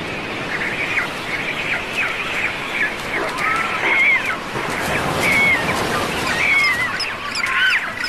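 A cormorant colony calling: many short, overlapping calls, a clamour that keeps up throughout, over the steady wash of surf breaking on the rocks.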